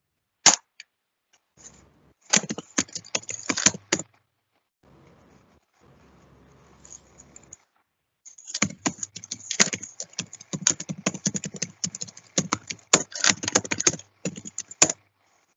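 Typing on a computer keyboard: quick, irregular key clicks in two runs, a short one about two seconds in and a longer one from about eight seconds in, with the sound cutting to silence between them.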